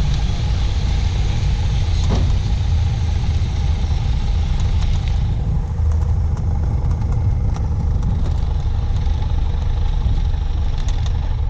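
Light aircraft's piston engine running at low power, heard as a steady drone inside the cockpit during the landing rollout on the runway. A high rushing hiss over it fades out about five seconds in, and there is a single click about two seconds in.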